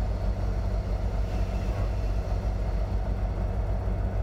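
Semi truck's diesel engine running steadily with a low, even drone.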